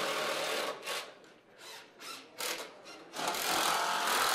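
Cordless drill driving screws into a wooden rail, in two runs: a short one about a second long at the start and a longer steady one from about three seconds in.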